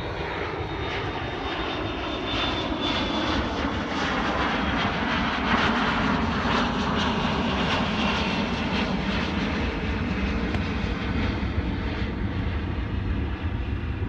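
Continuous engine roar like an airplane flying past, with a steady low rumble. It builds to its loudest about six seconds in, then slowly eases off.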